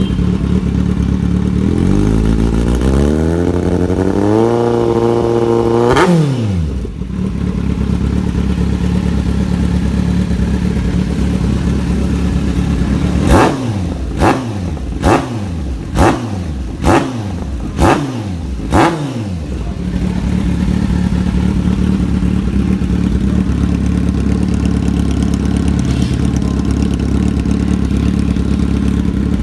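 Kawasaki Z800 inline-four engine through a Racefit GP slip-on exhaust. It idles, then revs in one steady climb for about four seconds before the throttle snaps shut. After more idling it gives a string of quick throttle blips about a second apart, then settles back to idle.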